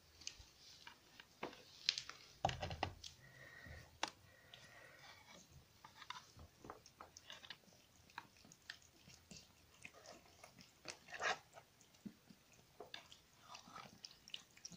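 Several kittens eating soft cat food, making irregular wet chewing and smacking clicks, with a few louder knocks about two seconds in.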